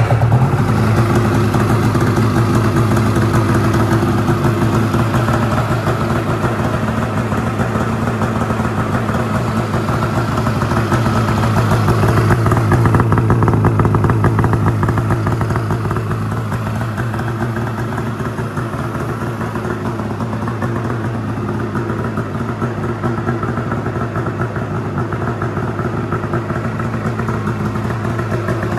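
Polaris RMK Khaos 850 Patriot snowmobile's two-stroke twin running steadily just after starting, breathing through a freshly fitted GGB mountain can muffler. It eases off slightly in the second half.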